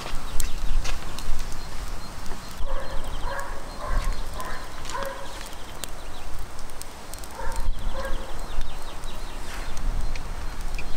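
Metal kebab skewers clicking and clinking against each other and the grill rim as they are turned over hot charcoal. Short, repeated animal calls come in about a third of the way in and again near the two-thirds mark.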